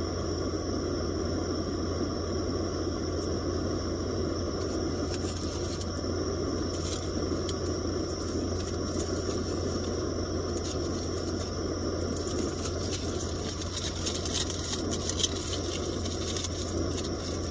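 A steady, engine-like drone with a low hum, and aluminium foil crinkling now and then as a foil-wrapped piece of food is unwrapped.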